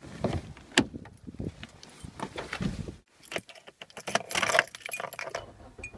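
A bunch of car keys jangling on their ring at a car door, then, after a short break about three seconds in, jingling and clicking as the key goes into the ignition lock.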